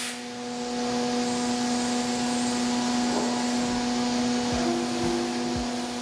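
CNC mill spindle turning a small cutter through steel under flood coolant, cutting submarine gate ports in an injection mold plate: a steady whine over the hiss of the coolant spray. A few short low thuds come near the end.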